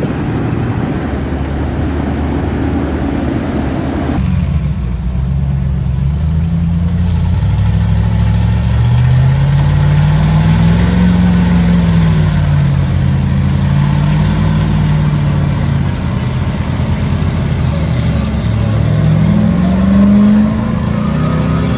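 A heavy engine running under load, its pitch rising and falling as it is revved up and down. A broader noisy rush fills the first four seconds and stops abruptly.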